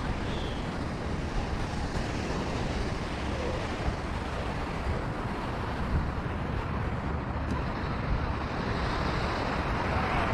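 Wind buffeting the microphone with a steady low rumble, over the continuous wash of small waves breaking on the beach.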